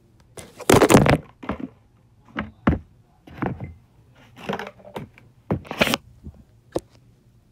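Plastic packaging of Model Magic clay being handled: a dozen or so short crinkling and crackling noises with quiet between them, the loudest about a second in.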